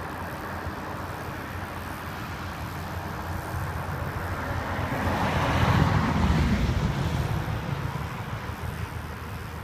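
A car passing by: a rushing road noise that swells to a peak about six seconds in and fades away again, over a steady low rumble.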